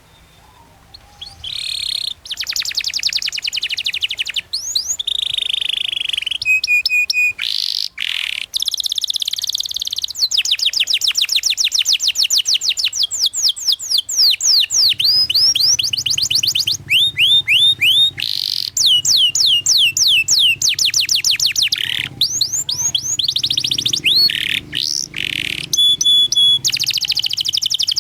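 Domestic canary singing a long, varied song of rapid, tightly spaced trills broken by sliding whistles and short chirps, starting about a second and a half in.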